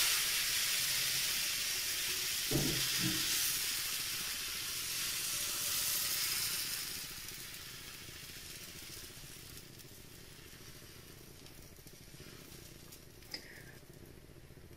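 Thin pancake batter sizzling in a hot frying pan, loud just after it goes in and dying down to a faint sizzle after about seven seconds. A brief low knock comes about two and a half seconds in.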